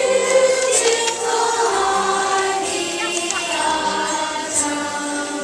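A choir of young children singing a song together, with sustained, gliding notes over a low accompaniment.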